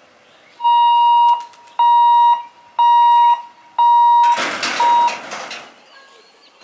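Train horn sounding four short blasts of one steady high note, about one a second. After them comes a loud burst of noise lasting about a second and a half, with a clipped fifth blast inside it.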